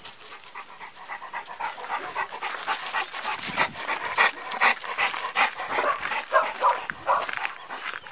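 Dog panting hard in quick breaths, several a second, growing louder after about a second in.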